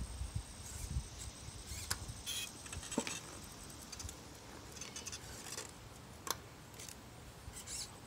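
Remote-controlled Pride powerchair turning in place on asphalt: short, faint whirring bursts from its motors and actuators, with a few sharp clicks.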